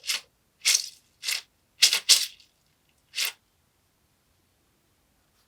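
Kinetic sand being cut or squeezed: about six short, crisp crunches in the first three and a half seconds, two of them close together about two seconds in.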